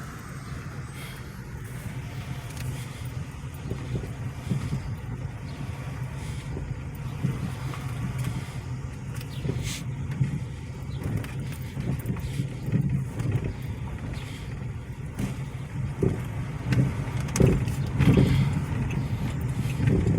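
A car driving slowly, with a steady low engine hum and road noise heard from inside the cabin, gradually getting louder.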